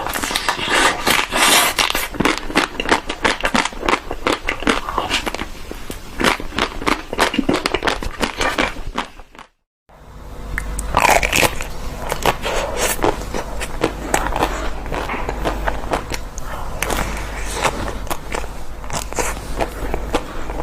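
Ice cream being eaten close to the microphone: dense, irregular bites, wet mouth clicks and chewing. It breaks off in a brief silent gap a little under halfway through, then carries on with a low hum underneath.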